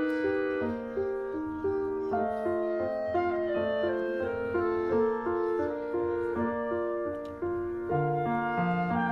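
Instrumental background music: a steady run of held notes changing a few times a second.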